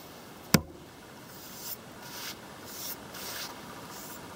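Ferro rod scraped along the uncoated 90-degree steel spine of a Condor Pack Golok to strike sparks: a sharp knock about half a second in, then several short, faint scrapes.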